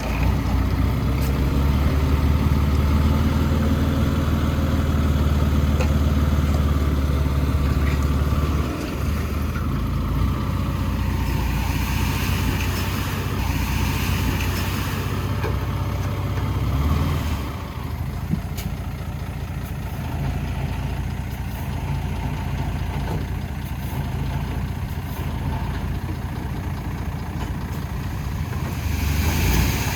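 Diesel engine of heavy earthmoving machinery running steadily. It is louder for the first nine seconds or so, then eases off, with a short swell about two-thirds of the way through.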